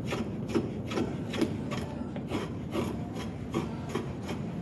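Homemade draw knife, made from an old saw blade, shaving wood in short, quick scraping strokes, about two a second. The blade is turned over so it takes only a light bite.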